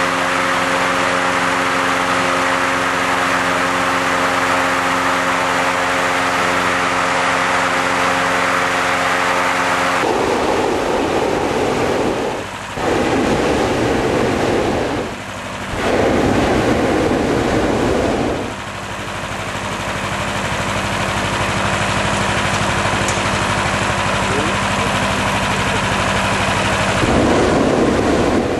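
A small engine runs steadily throughout. About ten seconds in, a propane burner fires into the envelope of a hot-air airship in three blasts of a few seconds each, then fires once more near the end.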